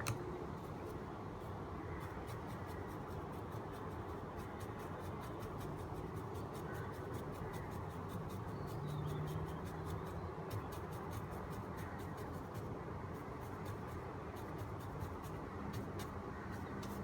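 Small brush scrubbing old residue off a graphics card's parts: a steady dry scratching with many small clicks and ticks throughout.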